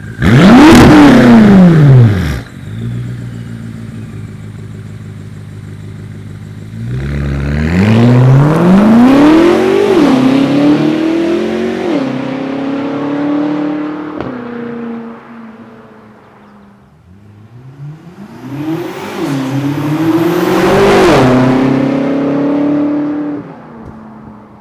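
BMW F10 M5's twin-turbo V8 through its exhaust: a quick rev about a second in, then idling. From about seven seconds in it pulls hard, the note climbing and dropping at each upshift before fading away. A second run climbs through the gears the same way from about eighteen seconds in.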